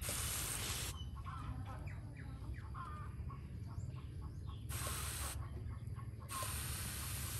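Handheld pump pressure sprayer hissing as it sprays water onto a potted plant and its soil, in three bursts: about a second at the start, a short one past the middle, and again near the end. Birds call faintly in the gaps between bursts.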